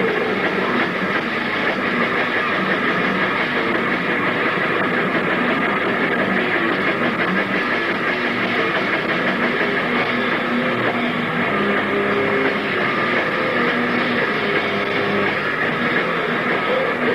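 Live rock band playing a loud, dense song with electric guitar.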